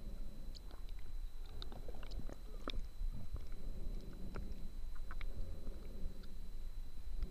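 Underwater sound heard through a mask-mounted camera's waterproof case: a low muffled rumble of water with scattered small clicks and crackles, and a faint steady high tone.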